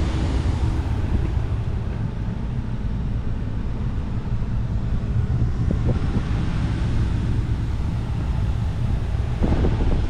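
Ford 5.0L V8 of a 2013 F-150 idling steadily, heard from inside the cab.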